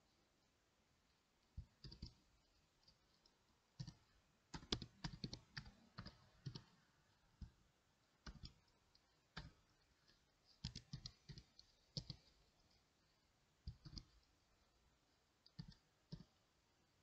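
Computer keyboard keys clicking in irregular bursts of typing, with short pauses between the bursts.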